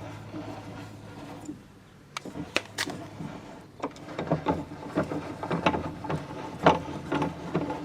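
Chain and sprockets of a leg vise's parallel-guide mechanism clicking and rattling as the vise is worked, starting about two seconds in and growing busier toward the end.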